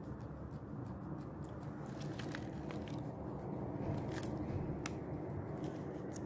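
Guinea pig eating: irregular crisp crunching clicks as it bites and chews its food.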